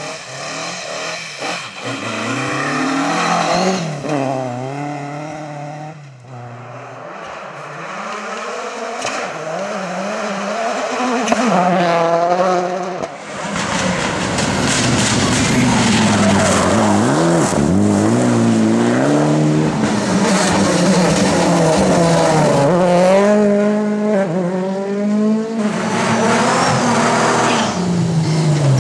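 Rally cars at full throttle passing one after another, engines revving hard and dropping in pitch at each gear change or lift-off. First comes a Ford Escort Mk2. After about 13 seconds it gives way to louder, denser engine and tyre noise from more modern cars.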